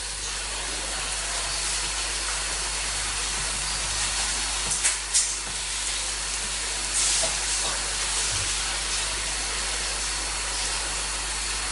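A steady, even hiss of noise with a few faint clicks.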